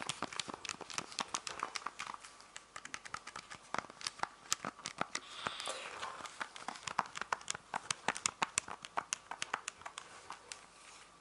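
Plastic keys of an old Casio pocket calculator being pressed over and over, a rapid, uneven run of small sharp clicks, several a second, with a faint rustle in the middle.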